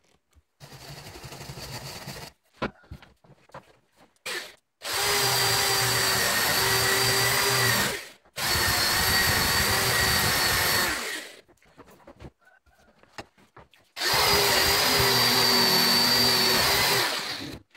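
Corded drill spinning a wire wheel brush against a rusty steel file, scrubbing off rust. It runs in three loud bursts of about three to six seconds each, with a steady whine over a rasping hiss, after a shorter, quieter run at the start.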